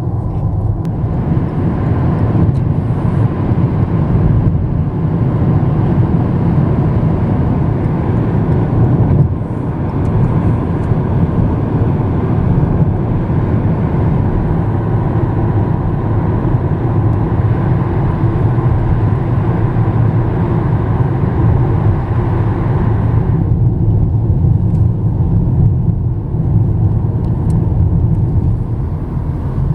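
Car driving at speed, heard from inside the cabin: a steady low engine and tyre rumble with road hiss. The higher hiss drops away a little over three-quarters of the way through.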